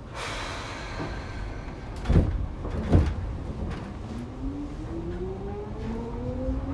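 Seibu 2000 series train's doors closing: a rush of air as the door engines work, then two thuds about a second apart as the doors shut. From about four seconds in, the traction motors start a whine that rises steadily in pitch as the train pulls away.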